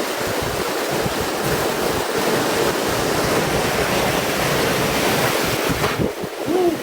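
Strong storm wind and heavy rain, a dense steady rush with gusts buffeting the microphone.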